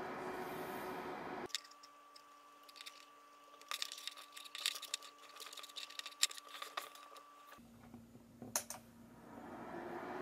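Faint scattered clicks and small taps from handling test leads and clips at a bench power supply's output terminals, mostly through the middle, with two more near the end, over a low steady hum.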